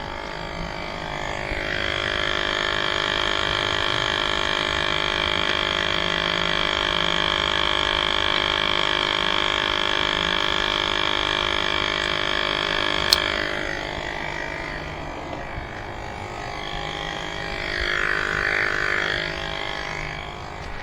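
E-bike rear hub motor spinning the wheel, a steady whine with many layered tones. It runs for about twelve seconds, stops with a sharp click, then runs again briefly near the end.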